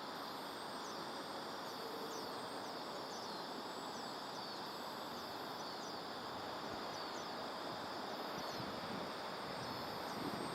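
Outdoor ambience of insects chirring steadily, with short falling chirps repeating about once a second, over a soft even hiss.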